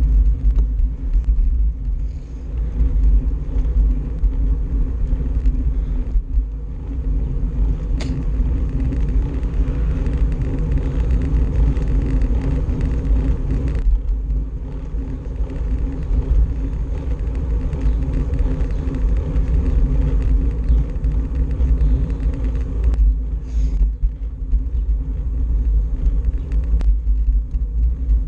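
Steady low wind rumble buffeting the microphone, with riding noise from a moving bike or scooter, while riding along a city street. A single sharp click comes about eight seconds in.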